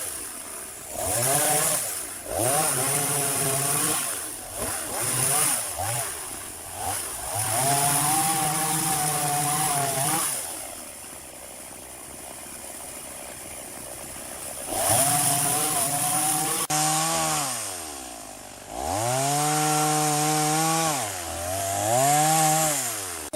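Chainsaw engine revving up and down again and again. It settles to a lower, steady run for a few seconds midway, then climbs and falls in long swoops of revs near the end.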